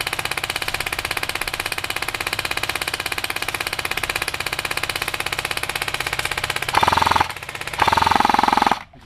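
Airsoft rifle firing on full auto: a long, steady stream of rapid shots, about a dozen a second. It grows louder in two bursts near the end and then stops.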